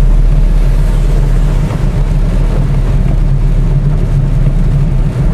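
Interior noise of a Ford car driving in heavy rain on a wet road: a loud, steady low rumble of engine and tyres with rain on the body, heard from inside the cabin.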